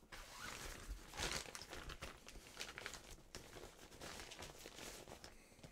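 Faint, continuous rustling and crinkling of a small collapsible 5-in-1 photography reflector's fabric as it is handled and turned over.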